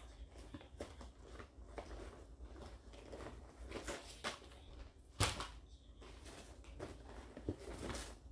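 Rummaging through a fabric school backpack: soft rustling and small knocks as items are handled and pulled out, with one sharper knock a little past halfway.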